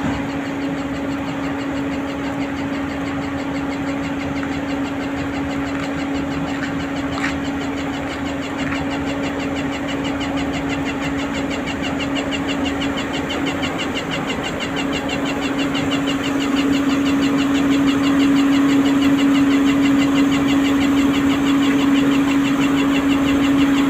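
Diesel engine of heavy asphalt-paving machinery running steadily with a low, even hum and a fast high ticking over it. It gets louder about two-thirds of the way through.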